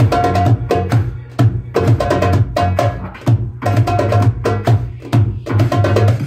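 Darbuka (goblet drum) played with fast strikes and rolls, over a backing music track with a steady, heavy bass line and a sustained melody.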